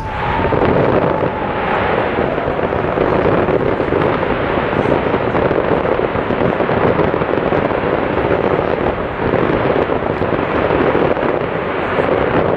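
Fireworks display at full intensity: a dense, continuous barrage of crackling and popping from many shells bursting at once, with a short whistle near the start.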